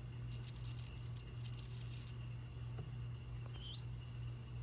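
Faint, quick light tapping and clicking over a steady low hum, then a short high rising chirp about three and a half seconds in.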